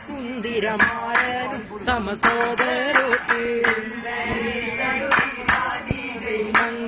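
A group of boys singing a vattappattu, the Mappila Muslim wedding song of Kerala, marking the rhythm with sharp hand claps throughout.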